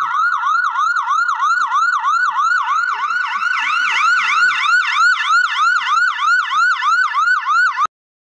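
Emergency vehicle siren in a fast yelp pattern, about four quick pitch sweeps a second, which stops abruptly near the end.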